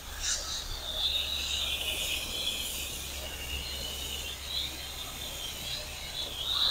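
Garden hose spray nozzle hissing as water sprays onto soil and tomato seedlings: a steady high hiss that wavers a little.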